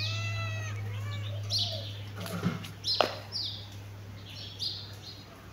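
Kitten mewing: a run of short, high calls that rise and fall in pitch, over a low steady hum that stops about halfway through.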